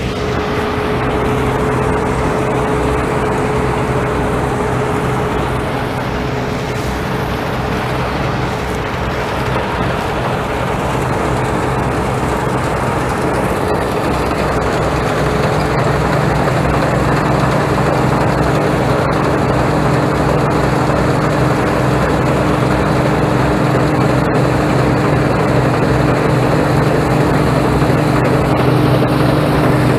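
Harvest machinery engine running steadily under load. About halfway through, its note shifts and settles lower and a little louder.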